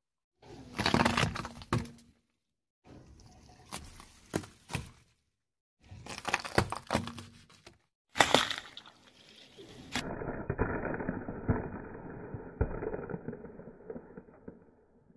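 A car tyre rolling over and crushing things in several short cuts, with sharp cracking and crunching snaps. Over the last five seconds, eggshells and a cardboard egg tray crackle and crunch under the tyre.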